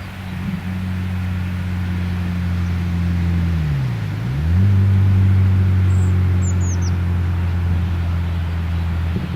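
An engine running with a steady low hum; about four seconds in its pitch dips briefly and comes back up. A few short bird chirps sound high above it just after the middle.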